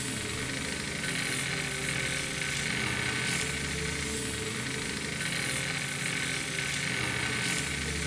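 Small cue-repair lathe running: its electric motor spins a wooden pool-cue shaft while the cutter head travels along it, shaving the wood, with a steady high whine throughout.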